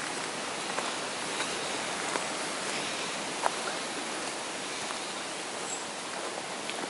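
A steady hiss with a few faint footfalls on a leaf-strewn dirt forest path.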